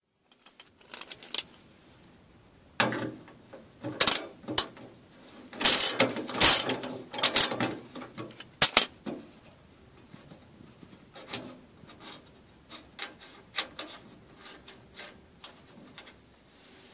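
Ratchet spanner clicking in irregular bursts, with knocks and scrapes of metal, as the under-tray bolts are undone. The loudest, busiest clicking comes between about three and nine seconds in; lighter scattered clicks follow.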